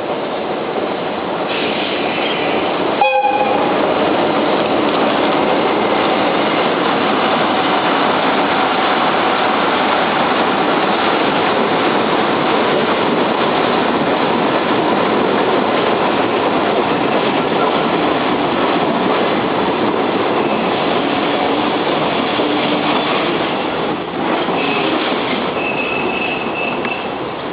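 Freight train wagons rolling steadily past at close range as the train pulls into the station, wheels clattering over the rails. A short sharp clank comes about three seconds in, and a thin wheel squeal sounds near the end.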